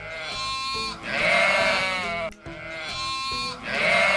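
Sheep bleating twice, each bleat long and wavering, over light background music.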